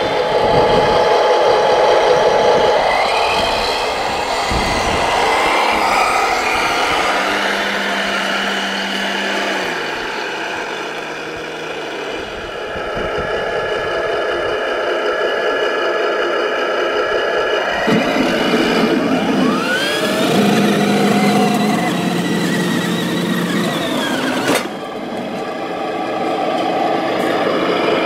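Radio-controlled model trucks and a wheel loader driving over gravel: the steady whine of their electric drives and gearing, rising in pitch as one speeds up about two-thirds of the way in.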